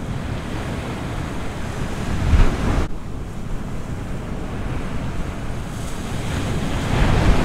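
Ocean surf breaking on the beach, with wind buffeting the microphone. A wave swells louder about two seconds in, and another builds near the end.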